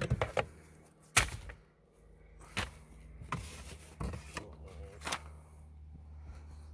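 Scattered clicks, knocks and rustles of litter being picked through by hand inside a car: paper slips, plastic bags and small items moved about. The loudest knock comes about a second in.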